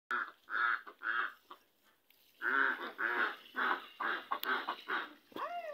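Domestic waterfowl calling repeatedly: three calls, a short pause, then a quick run of about six more, and one call rising and falling in pitch near the end.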